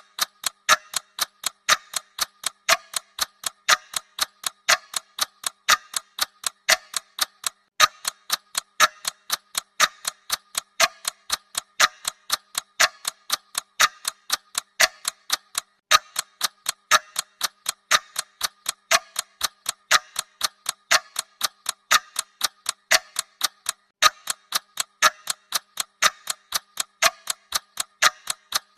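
Clock ticking: a steady, even run of sharp ticks, about four a second.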